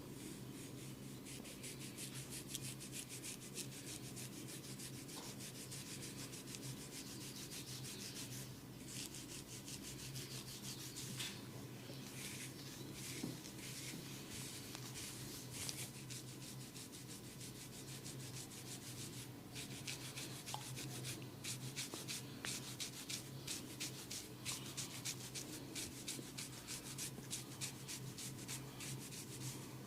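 A person's hair and scalp being rubbed and scratched in a head massage: quick, rasping strokes, several a second, that grow more regular in the last third, over a steady low hum.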